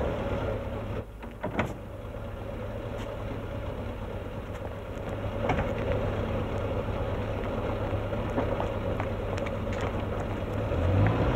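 Small car's engine idling steadily, with a few faint clicks and knocks.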